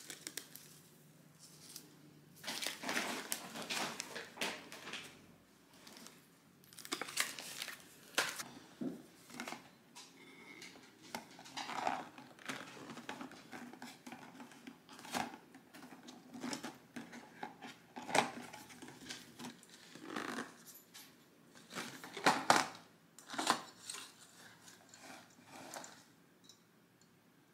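Hands handling and opening a cardboard box of Christmas ornaments on a stone countertop: irregular rustling and crinkling of packaging with light knocks and clicks, loudest a little before the end.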